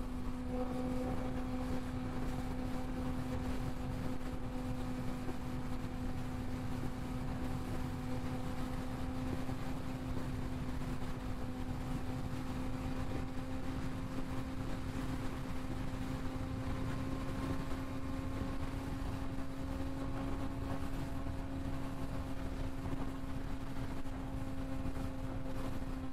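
Suzuki GSX-R sportbike's inline-four engine running at a steady cruising speed, a constant droning note that holds nearly the same pitch throughout, under the low rush of wind noise.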